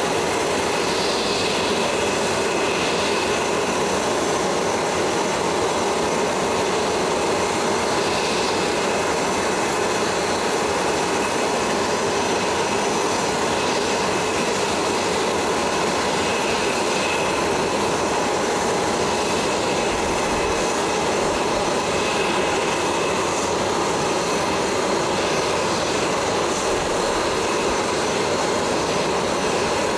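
Jet aircraft engines running at idle: a steady turbine whine over a constant rush of noise.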